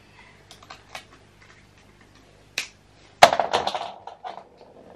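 A few light clicks from handling a small Christmas ornament, then, about three seconds in, a sharp knock as the unwrapped ornament drops onto the floor, followed by a quick clatter of smaller knocks that dies away within a second.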